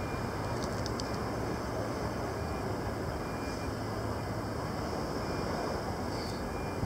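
Steady outdoor rushing noise with a low hum underneath and no distinct events.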